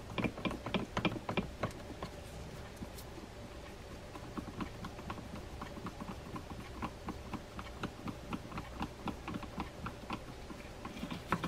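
Quick light clicking and ticking of a screwdriver driving the small case screws into a Shimano Sedona 4000R spinning reel's case. The clicks come about five a second over the first two seconds, then go on fainter and more irregular.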